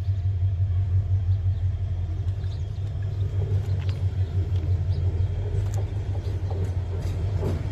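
Diesel locomotive approaching slowly along the track, its engine a steady low drone.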